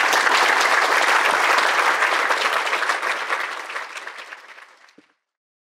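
Audience applauding, a dense steady clapping that thins out after about three seconds and stops near the end.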